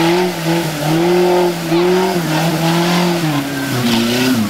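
Off-road 4x4's engine revving hard through mud, its pitch climbing and dropping back about five times in quick succession.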